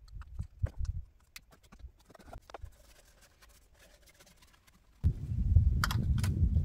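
Clicks and knocks of parts and tools being handled in a truck's engine bay, then a stretch of near-quiet. About five seconds in a low rumble starts suddenly, with a couple of sharp clicks over it.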